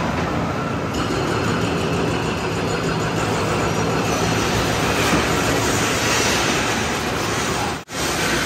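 Heavy diesel machinery running steadily, a low engine drone under a wide mechanical noise; it cuts out for a moment near the end.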